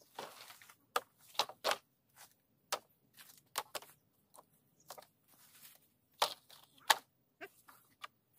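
Cut bamboo poles knocking and clattering against each other as they are pulled from a pile and lifted, with dry leaves and twigs crunching. The knocks come irregularly, about a dozen sharp ones, with two of the loudest a little after six seconds and just before seven seconds in.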